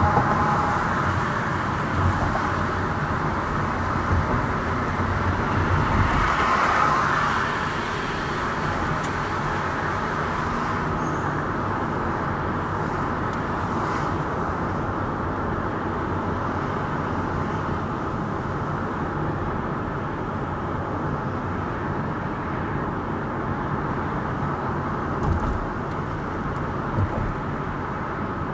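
Road and tyre noise of a car driving through city streets, heard from the dashboard camera inside the cabin: a steady rush that swells for a second or two about six seconds in, with two soft thumps near the end.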